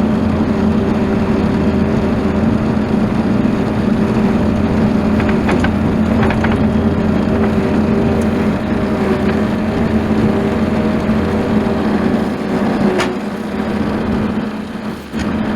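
Bobcat skid steer engine running steadily, with a few knocks of something being handled and a brief drop in level near the end.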